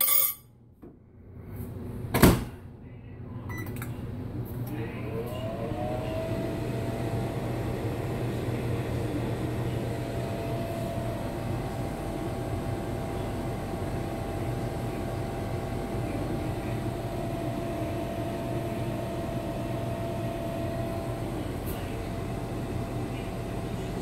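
Microwave oven door shut with a loud clack about two seconds in, then the oven starts and runs with a steady hum, a tone rising in pitch as it comes up to speed and then holding steady.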